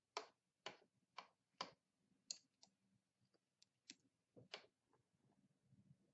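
Faint, sharp clicks of a hard object being tapped. Four come about half a second apart, then a few more at uneven intervals, stopping a little past the middle.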